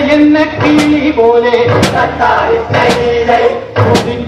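Boat-race song: voices singing held, chant-like lines over music with a strong beat about once a second, keeping the rowing rhythm.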